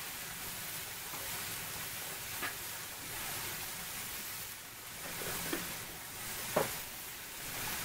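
Steady sizzling of diced onions, peppers and salsa frying on a hot propane flat-top griddle. A couple of short clicks come through, the second, near the end, louder.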